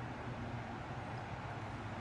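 Steady outdoor ambience on a calm river: an even hiss with a low, steady hum underneath.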